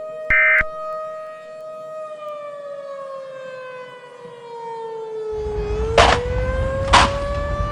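Civil defense siren sounding a steady tone, with a short beep near the start. After about two seconds its pitch slowly falls, then starts to rise again. About five seconds in a low rumble comes in, with two loud thumps about a second apart.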